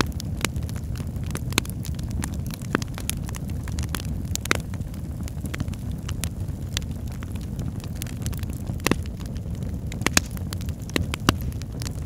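Crackling fireplace: a steady low rumble of flames with irregular sharp pops and snaps, a few louder than the rest.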